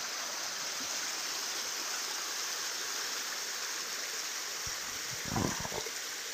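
Small stream rushing steadily over rocks. A few low thuds come near the end.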